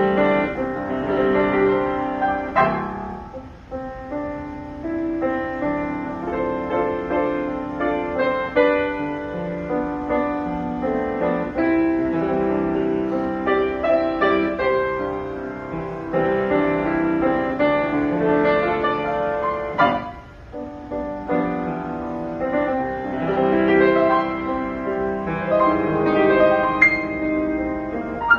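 Yamaha G3 grand piano being played, a continuous passage of melody over chords, with two brief lulls between phrases, about 3.5 seconds in and about 20 seconds in.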